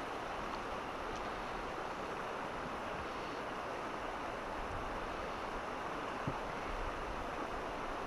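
Steady rush of a shallow, fast mountain river running over a stony riffle, with one brief sharp click about six seconds in.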